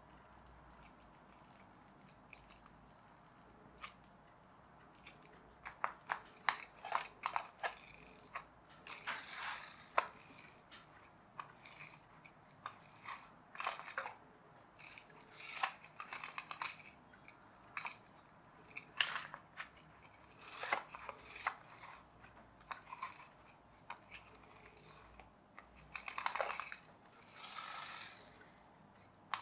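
Workbench handling of a foam-card pull-back toy plane: hand cutters clicking and snipping off small pieces, with scattered clicks, scrapes and a few short rasping sounds about a second long.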